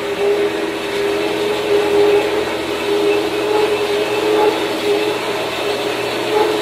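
Shop Fox W1715 metal-cutting bandsaw running, its blade cutting through a piece of metal with a loud, steady hum whose pitch wavers slightly.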